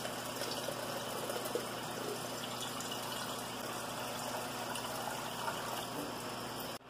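Water running in a steady rush, as water is drawn or poured to make coffee; it cuts off abruptly near the end.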